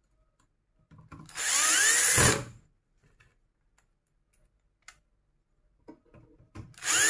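Cordless drill-driver running in two short bursts, its motor whine rising as it spins up, driving screws back into the metal frame of a cold spark machine. The first burst comes about a second in and lasts about a second; the second starts near the end, with a few light clicks in between.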